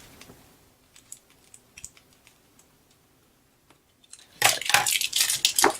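A few faint clicks, then about four seconds in a loud, dense crackling and crinkling as the taped-up paper book is handled.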